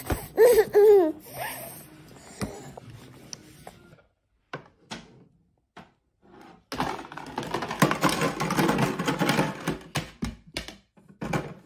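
A baby's short vocal sound, its pitch wavering up and down. A few seconds later a toddler clatters plastic play dishes and a bowl in a toy kitchen: a dense run of knocks and rattles lasting about three seconds, with a few separate knocks near the end.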